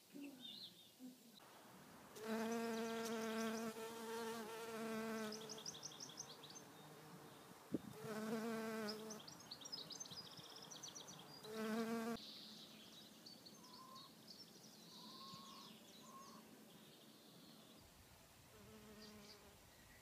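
A bee buzzing in flight, a steady hum that comes in three spells, with a sharp click about eight seconds in. Small birds chirp in the background.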